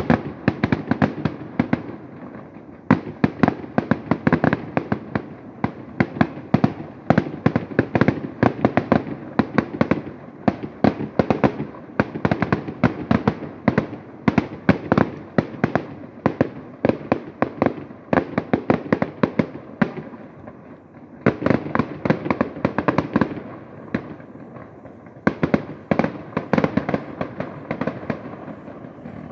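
Aerial fireworks shells bursting in a rapid barrage, many bangs a second in quick succession, with short pauses about 2 s in, about 20 s in and about 24 s in.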